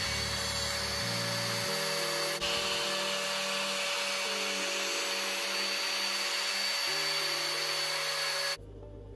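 Handheld plunge router running at full speed with a steady high whine as its pattern bit trims a wooden blank along a template. It cuts off suddenly near the end.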